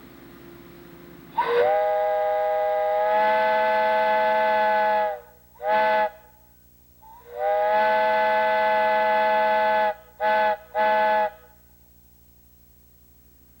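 A 3½-inch Lunkenheimer chime whistle blown on compressed air, sounding a chord of several tones at once. It gives five blasts: long, short, long, short, short.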